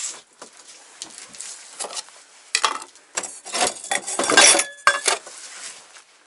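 Crockery clinking and knocking together as pieces are handled: light knocks at first, then a run of sharp clinks from about two and a half seconds in, some leaving a short ring, loudest about four and a half seconds in.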